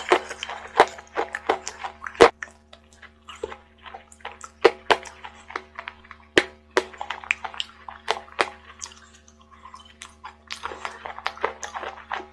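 Close-up crunching and clicking of chalk being eaten: a spoon stirring and scraping a wet chalk mash in a cup, with chewing. Quick clusters of clicks near the start and again near the end, sparser in between.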